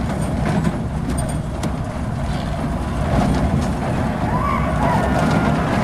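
Steel coaster train rolling along the Arrow Pipeline prototype's tubular track, a steady low rumble. The train is coasting on its own momentum during a test run, with no chain lift.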